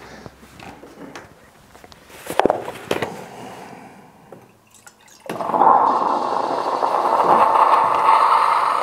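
Milk poured from a carton into a small stainless steel milk pitcher. A steady splashing pour starts about five seconds in and eases off near the end. Before it come a few light knocks and clicks of the carton being handled.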